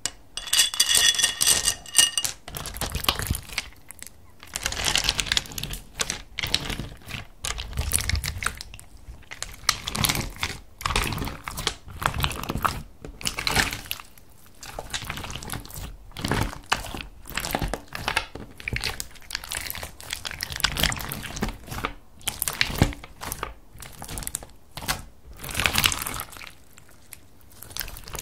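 Clear slime packed with small plastic star beads being stretched, squeezed and pressed by hand: irregular squishing and crackling with clicks from the beads. In the first two seconds bright clinks ring out, as beads rattle against a clear plastic container.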